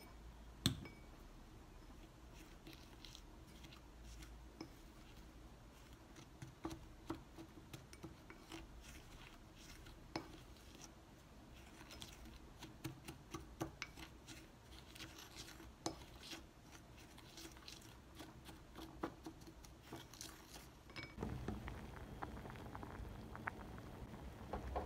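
A plastic measuring spoon tapping and scraping against a small glass bowl as dry spices are measured in and stirred: a run of light clicks and scrapes. Near the end, a steady rushing bubbling of water at the boil.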